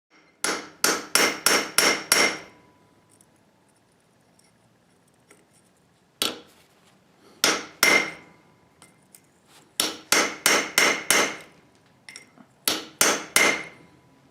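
Hand hammer striking steel on an anvil in bursts of quick blows, about three a second, with pauses of a few seconds between the bursts; each blow rings.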